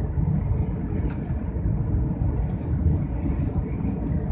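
Steady low rumble of jet engines and rushing air heard inside the cabin of an Airbus A320-family airliner climbing after take-off, with a few faint ticks.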